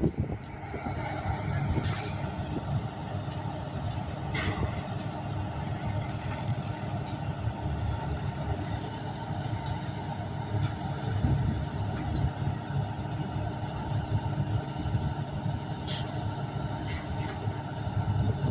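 Heavy engine running steadily with an even hum, with a few short sharp clicks or hisses standing out over it.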